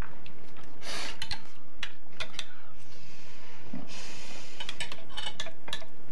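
Cutlery clinking against dinner plates during a meal: a scattered series of sharp clicks and clinks.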